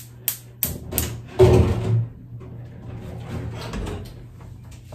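Gas stove burner being lit: the igniter clicks several times in quick succession, then a louder rush of noise about a second and a half in as the burner catches, followed by the flame's low, even hiss.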